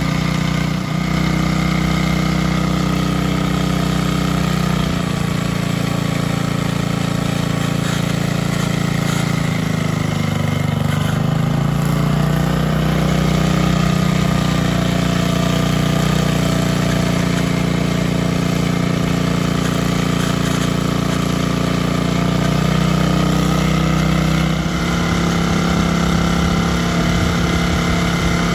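The 5 hp cast-iron L-head Briggs & Stratton single-cylinder engine on a 1979 Burns front-tine tiller is running steadily on its first run in over 30 years. Its speed sags briefly about ten seconds in and picks back up.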